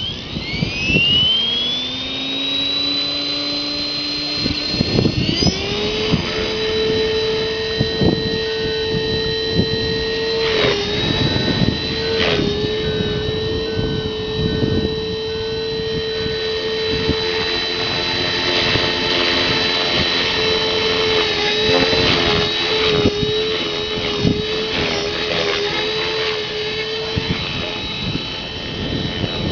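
Blade 400 electric RC helicopter spooling up, its whine rising in pitch over the first couple of seconds and again about five seconds in, then holding a steady high whine. Gusts of wind buffet the microphone throughout.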